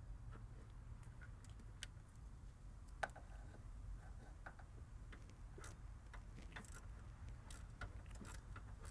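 Faint, irregular clicking of a ratchet wrench and metal tool contact as the alternator mounting bolts are tightened, with one louder click about three seconds in.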